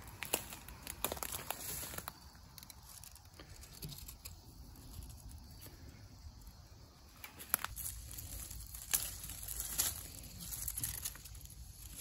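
Dry plant stems and dead brush crackling and rustling as they are handled. There are scattered sharp snaps in two bouts, with a quieter spell in the middle.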